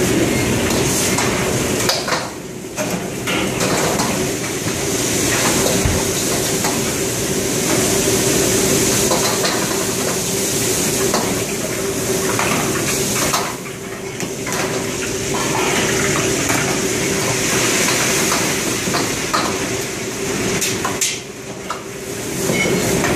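Commercial wok range at work: woks and metal ladles clanking and scraping over a steady rush of gas burners and kitchen exhaust with a low steady hum.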